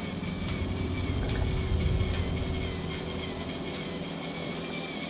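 Cordless drill running steadily while boring into a metal tube, with a whining tone that wavers slightly and a low motor hum.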